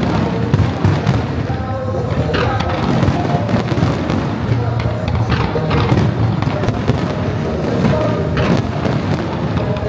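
Aerial fireworks going off continuously: dense crackling mixed with bangs. The show's synchronized music plays along underneath.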